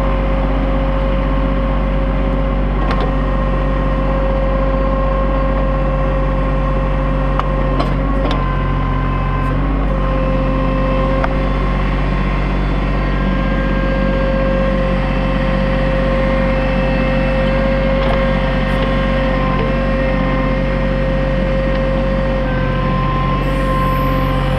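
New Holland TC33D compact tractor's diesel engine running steadily under backhoe work, with a steady whine over it and a couple of faint knocks about eight seconds in.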